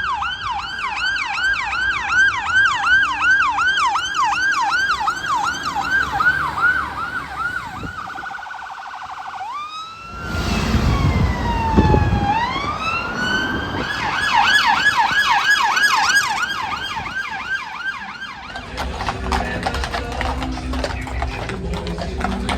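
UK emergency vehicle siren on a fast yelp, about three sweeps a second. Around the middle it switches briefly to one slower falling-and-rising wail, with a loud low vehicle rumble as it passes close. After that it goes back to the yelp and fades.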